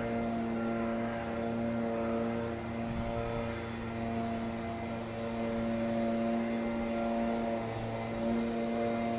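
Diesel engines of a Hitachi Intercity Express bi-mode train running as it approaches, a steady drone made of several constant tones.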